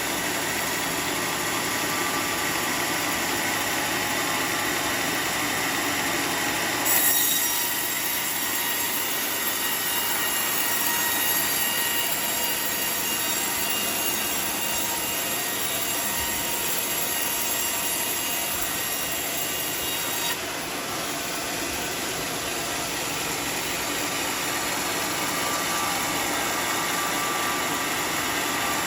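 A sawmill saw cutting teak wood, running with a steady mechanical drone. About seven seconds in, a high-pitched squeal joins as the blade cuts through the wood, and it stops abruptly about twenty seconds in while the machine keeps running.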